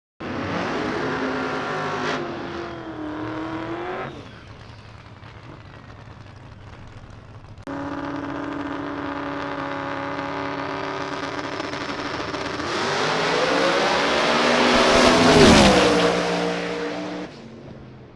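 Drag race car engine at high revs, its pitch swinging up and down for the first few seconds. After an abrupt cut, a steady high engine note grows louder and drops sharply in pitch as the car passes, about fifteen seconds in.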